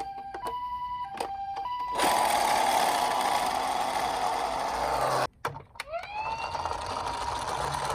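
A toy ambulance's electronic two-tone hi-lo siren alternates pee-poh for about two seconds. A loud steady whirring noise takes over for about three seconds. After a brief break, a toy police car's siren wails, rising in pitch and then holding.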